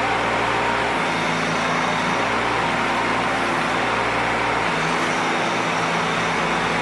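Bobcat 418 mini excavator's small diesel engine running steadily under hydraulic work, its note shifting slightly about a second in and again near five seconds.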